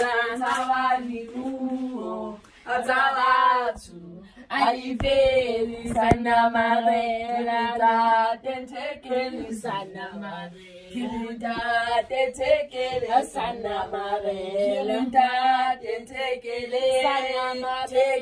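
Voices singing a song in long held notes, with brief breaks about three seconds in and again near the middle.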